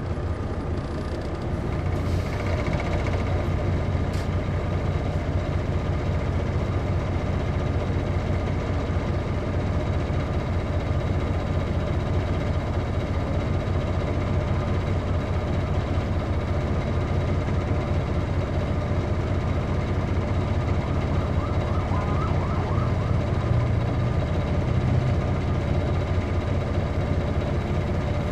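Detroit Diesel Series 60 engine of an MCI D4000 coach bus, heard from on board, running steadily at an even pitch.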